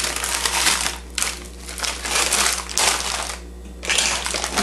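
Plastic grocery bags crinkling as they are handled: a bag of stir-fry peppers and onions is put down and another bag picked up. The crinkling comes in several bursts with short pauses between them.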